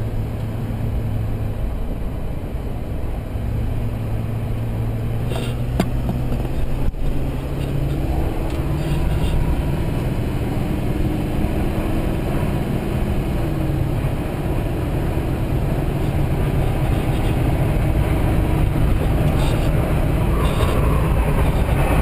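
In-cab sound of a 2005 GMC Sierra 2500HD's Duramax V8 turbo-diesel accelerating toward highway speed. The low engine drone climbs in pitch in a few steps, over a steady rush of road and wind noise that grows slowly louder. That wind noise comes largely from the driver's A-pillar.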